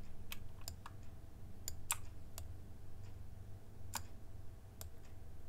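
Irregular clicks of a computer mouse and keyboard, about eight in the span, over a low steady hum.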